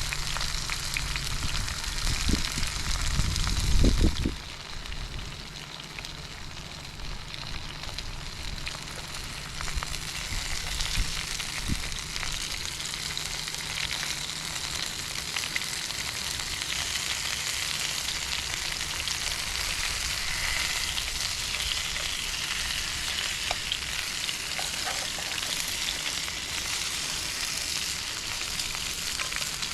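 Burgers frying in a pan on a camping gas stove, a steady sizzle throughout. A loud low rumble comes about two to four seconds in.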